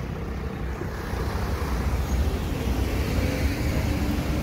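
Wheelchair wheels rolling over stone paving, a steady low rumble and rattle that grows a little louder about a second in.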